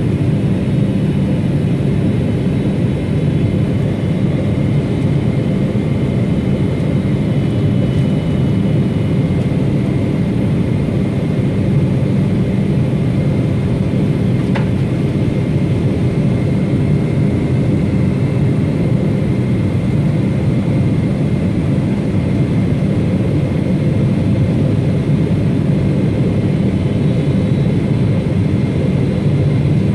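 Steady cabin noise of a jet airliner on its descent, heard from a window seat beside the engine: a low, even rush of engine and airflow with faint steady whines above it. There is one brief click about halfway through.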